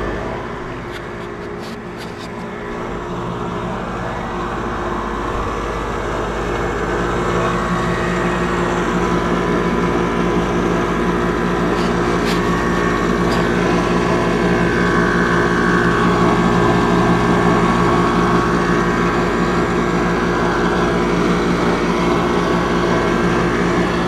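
Outdoor air conditioner condensing unit running, its compressor and condenser fan making a steady hum with a few faint clicks. The hum dips about two seconds in, grows louder over the next several seconds, then holds steady.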